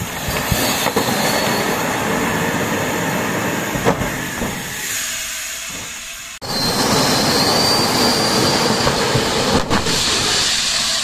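Airbus A310 emergency evacuation slide firing and inflating: a sudden loud rushing hiss of inflation gas with a few knocks as the pack unfolds. After a brief break about six seconds in, a second loud rushing hiss starts abruptly and runs on with a faint high whistle in it.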